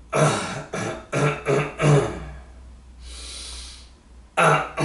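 A man vocally imitating snoring and catching breath: five short throaty voiced sounds in quick succession, then a long breathy hiss about three seconds in, and more short throaty sounds near the end. He presents it as the sound of his own snoring with the breath getting stuck, the pauses of sleep apnea.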